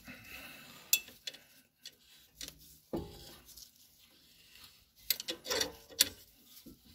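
Scattered metallic clicks and clinks as a G-clamp is screwed in against the old brake pad, pushing the front brake caliper piston back into its bore. There is a sharp click about a second in, another around three seconds, and a quick run of clicks near the end.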